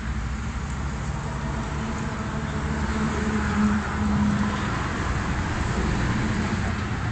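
Road traffic noise under a steady low hum, swelling as a vehicle passes a few seconds in, then easing.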